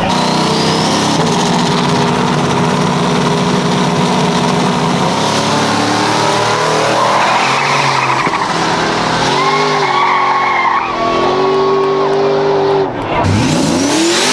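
Drag car doing a burnout: the engine is held at steady high revs while the rear tyres spin and squeal. Near the end the revs drop sharply and climb again.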